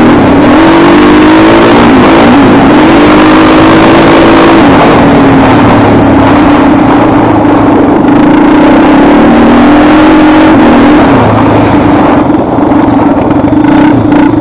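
Honda TRX400EX quad's single-cylinder four-stroke engine running loud and hard while riding. Its pitch dips and climbs several times in the first few seconds and again about ten seconds in, as the throttle is worked.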